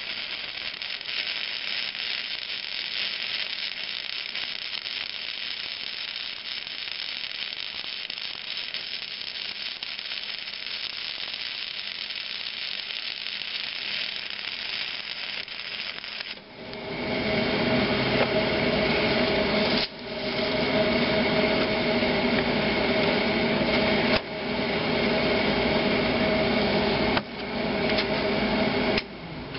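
Flux-core wire welder arc crackling and hissing steadily as a puller is welded back onto a stuck flywheel gib key. About two-thirds of the way through, the crackle gives way to a louder, steady hum with held pitched tones that breaks off and starts again about three times.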